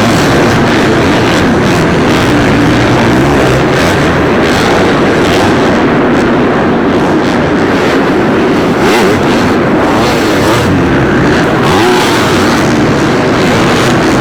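Several supercross dirt bikes running on the track, engines revving up and down over and over with pitches that overlap and cross.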